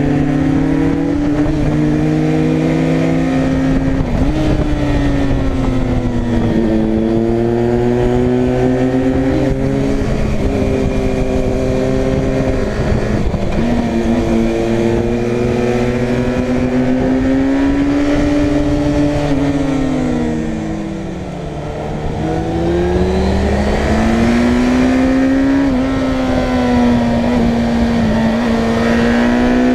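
Motorcycle engine heard on board while riding: its pitch rises with the throttle and steps as it shifts gears, then falls when easing off, with one clear slowdown and pick-up about 20 seconds in. A steady rush of wind runs underneath.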